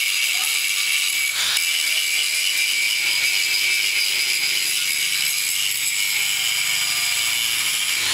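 Angle grinder running steadily against the edge of a boat propeller blade, grinding down damage from the propeller striking a rock. It makes a continuous high, hissing grind with one brief sharp knock about a second and a half in.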